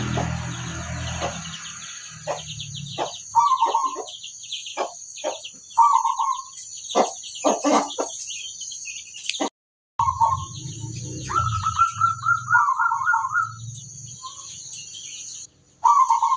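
Zebra dove (perkutut) cooing: repeated warbled, trilling phrases pitched around 1 kHz, mixed with short sharp chirped notes. A steady high-pitched whine runs underneath. The sound drops out for about half a second a little before the middle.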